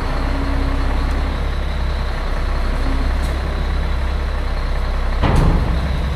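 Mack RB dump truck's diesel engine running steadily while its hydraulic hoist raises the dump bed, with a brief louder burst of noise about five seconds in.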